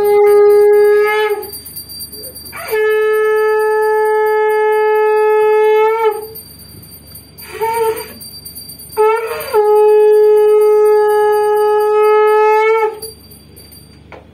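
Conch shell (shankh) blown in long, steady blasts at one held pitch. One blast ends about a second in, a second runs about three seconds, and a third about four seconds, with a short sputtering puff between the last two.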